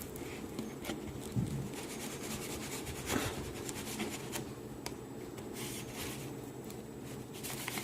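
A cardboard box being worked open by hand: scratching and rubbing of cardboard with many small scattered clicks and a couple of light knocks, over a steady low hum.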